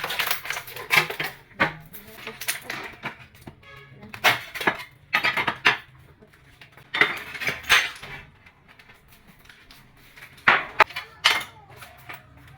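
Hard clinks, knocks and scrapes of tools on ceramic tile, coming irregularly with short pauses between them.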